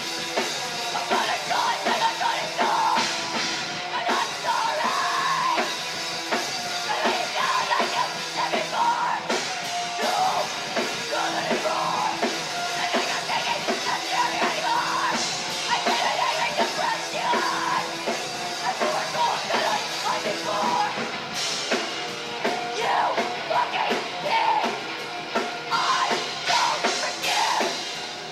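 A heavy punk/metal band playing live at full volume, with yelled vocals over dense guitars and a drum kit. It sounds thin, with little deep bass.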